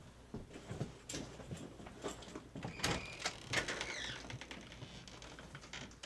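Irregular clicks and knocks of a door being handled and opened, with a short squeak about three seconds in and a falling squeak just after.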